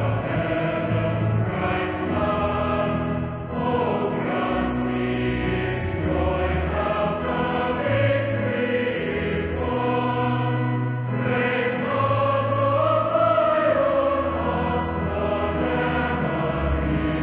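Choir singing church music over held low accompaniment notes.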